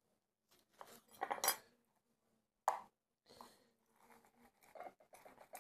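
Knife cutting a lemon on a wooden cutting board, with a few quiet knocks and scrapes and one sharp knock near the middle. Then soft rubbing and squishing as a lemon half is twisted on a hand citrus juicer.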